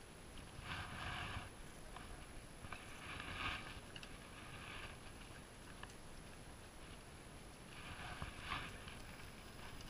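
Spinning reel being cranked in three or four short spells of about a second each, a faint whirring as line is wound in.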